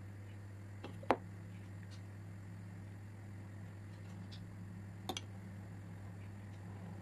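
Steady low hum with two short, light clicks, one about a second in and one about five seconds in, from a spoon and silicone brush at work as melted chocolate is drizzled and spread on dough.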